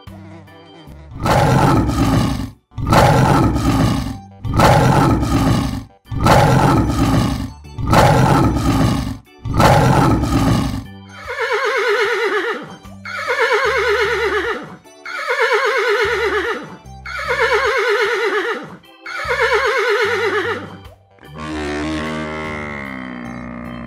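A run of animal calls: six loud, deep calls in the first half, then five horse whinnies with a falling, wavering pitch, then a buffalo lowing near the end.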